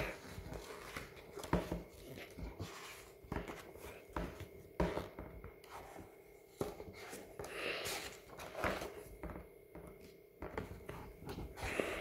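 Pages of a paper picture book being turned and handled: irregular soft paper rustles and swishes with small taps and clicks.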